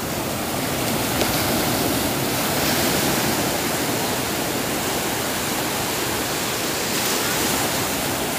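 Small sea waves breaking and washing in over the sand as foam: a steady rushing surf that swells slightly about three seconds in.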